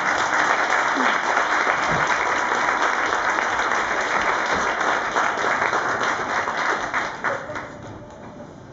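Theatre audience applauding: dense, steady clapping that fades away over the last couple of seconds.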